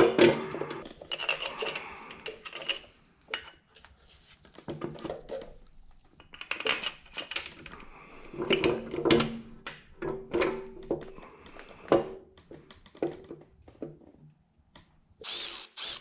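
Handheld power drill running in a series of short stop-start bursts with brief pauses between them.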